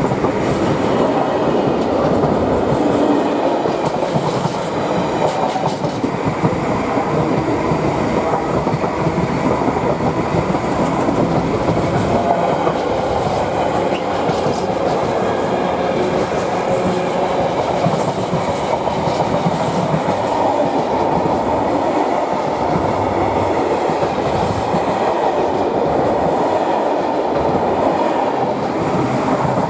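Freight train's wagons rolling steadily past on the line, a long continuous rumble of wheels on rail with occasional sharp clicks over the rail joints.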